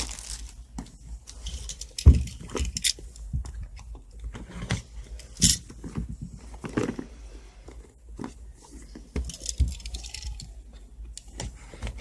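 A cardboard smartphone retail box being handled and opened by hand: scattered knocks, taps and scraping rustles of cardboard and paper, the loudest a thump about two seconds in.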